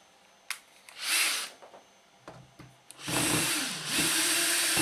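Cordless drill-driver motor whirring, starting about three seconds in. Its pitch sags briefly as it bites on a screw in the turntable case, then holds steady as it turns the screw out.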